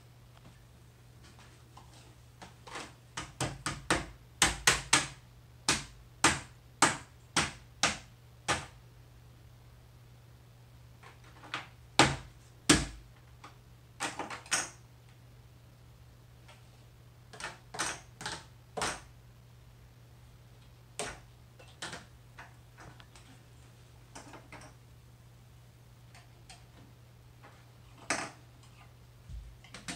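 Hard-candy lollipops clicking and clacking as they are popped out of a clear plastic candy mold and set down on a paper plate. A quick run of about a dozen sharp clicks comes first, then scattered clicks in small groups.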